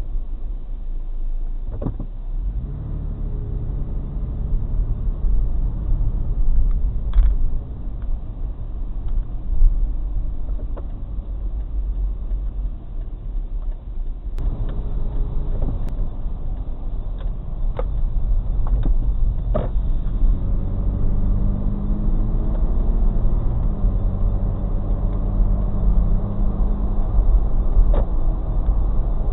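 A car being driven, heard from inside the cabin: a steady low engine and road rumble. The engine note rises as it gathers speed a few seconds in and again past the middle, with a few light clicks and knocks.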